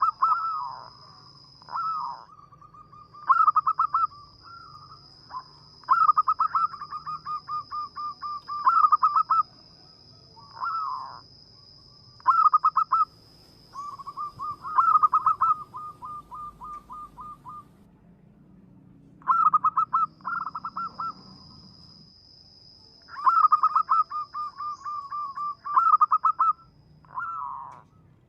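Zebra dove (local perkutut) cooing again and again: phrases of fast rolling pulses, each led by a bright note, with short pauses between. A steady high-pitched whine runs behind much of it, dropping out for a few seconds in the middle.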